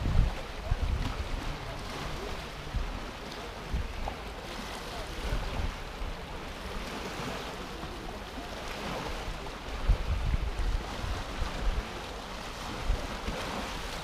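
Small sea waves lapping and washing onto a sandy, stony shore, with wind buffeting the microphone in uneven low rumbles.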